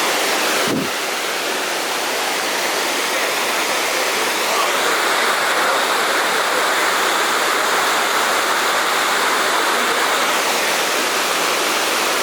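Steady rush of a river waterfall's falling water, with a brief break about a second in.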